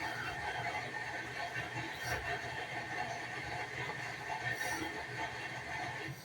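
Washing machine running with a steady mechanical whirring, grinding noise that stops abruptly near the end. The owner says it sounds like a slipping belt but thinks it is the transmission or its linkage failing.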